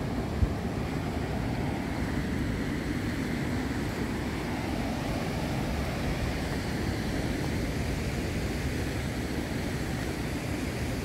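Ocean surf breaking on a rocky shore, a steady rushing noise, mixed with wind rumbling on the microphone. A single brief low bump about half a second in.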